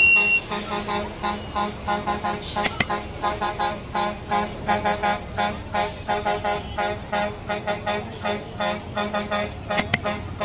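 Vehicle horns tooting in a rapid rhythm of short notes in changing pitches, about five a second, over a steady low hum. Two pairs of sharp cracks, a few seconds in and near the end.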